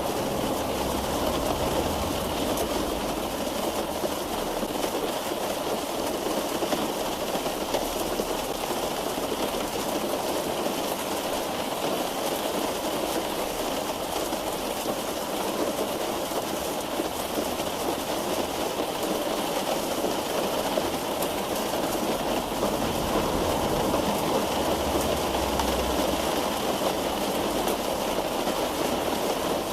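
Steady rain drumming on a car roof, heard from inside the car as a dense, even patter. A low rumble swells and fades a few times underneath.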